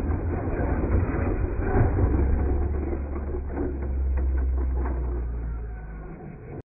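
Retro R/C monster trucks running on dirt, their motors and geared drivetrains grinding steadily, with a few sharp knocks from landings over the obstacles. The sound fades and then cuts off abruptly near the end.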